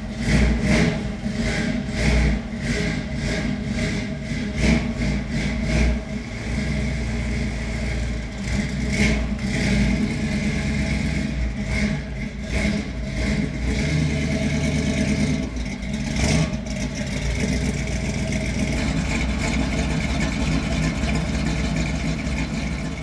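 1955 Chevy gasser's V8 engine running just after start-up, revved in short blips about three every two seconds for the first six seconds, then running more steadily with occasional blips as the car backs out.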